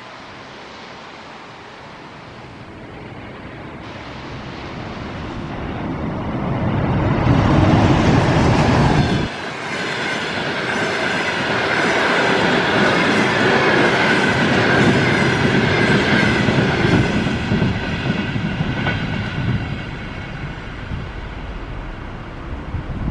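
EP20 electric locomotive and its passenger coaches passing at speed. The noise swells as the locomotive approaches, is loudest as it goes by seven to nine seconds in, then drops suddenly. A steady rumble and clatter of coach wheels with a high whine follows and fades as the train draws away.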